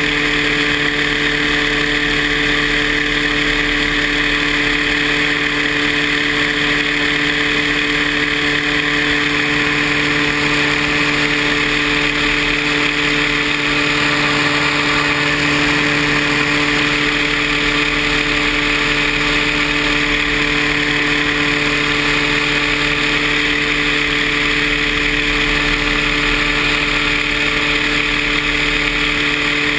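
Paramotor engine and propeller running at a steady throttle, a constant drone that holds the same pitch and level throughout.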